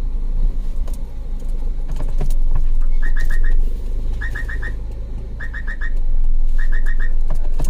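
A car's reverse horn chirping: groups of four quick, rising, bird-like beeps, repeating about every second and a bit from about three seconds in, over the low hum of the idling engine.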